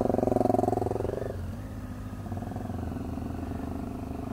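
Motorcycle engines running: a loud steady engine note for about the first second as a dual-sport bike pulls away close by, dropping away sharply, then a quieter steady engine running.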